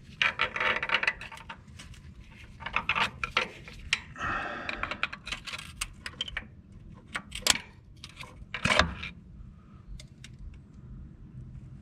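Metal parts and tools clinking and rattling in irregular clusters during hand work on a tractor clutch's throwout bearing assembly, with one louder knock about nine seconds in.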